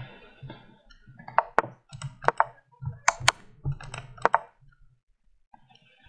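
A quick string of sharp wooden clicks, most in close pairs, from online chess move sound effects as moves are played back and forth in a time scramble.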